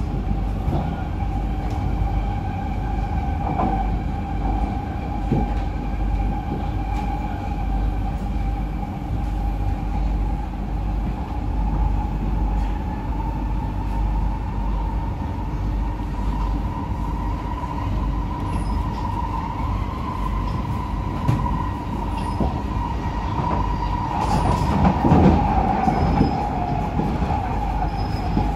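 Inside the cabin of a C151B metro train running between stations: a steady rumble of wheels on track under the whine of its IGBT-VVVF traction motors. The whine holds near one pitch, rises a little past the middle and sags near the end. The wheels clatter louder about 25 seconds in.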